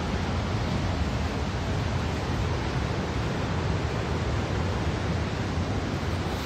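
Steady rush of a waterfall, the Bhagirathi river pouring through the rock gorge: a loud, even noise heaviest in the low end, with no breaks.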